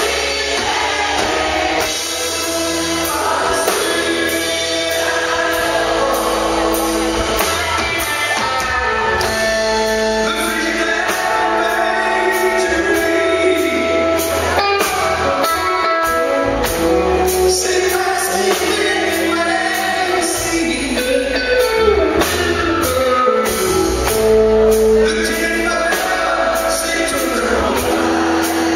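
Live band music: a man singing lead into a microphone over electric bass and a steady beat.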